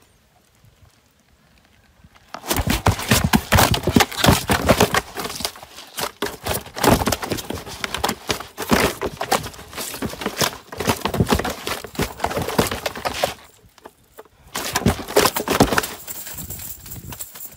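Freshly caught fish thrashing in a plastic basin, their bodies and tails slapping and knocking against the plastic in a dense, irregular run for about ten seconds, then a shorter burst near the end.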